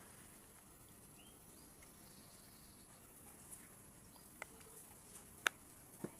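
A few short, sharp clicks over a quiet background, four in all in the second half, the loudest about five and a half seconds in.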